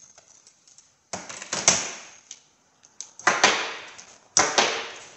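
Metal sockets clicking and clattering as they are handled and slid onto a plastic socket rail, in three short bursts about a second apart.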